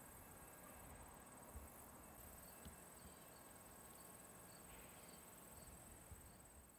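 Near silence: faint outdoor ambience with the steady high trilling of crickets, and a few soft chirps in the second half.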